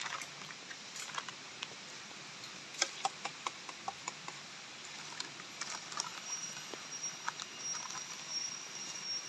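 Scattered light clicks and taps. About halfway through, an insect's thin, steady, high-pitched call starts up and keeps going.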